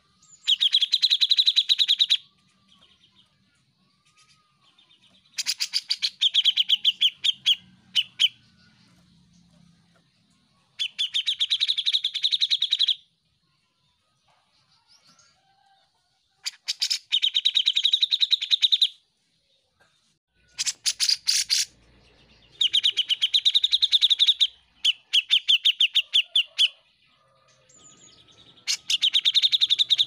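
Cucak jenggot (grey-cheeked bulbul) singing in loud phrases of fast, repeated notes. Each phrase lasts about two seconds, and a new one starts every few seconds, about seven in all.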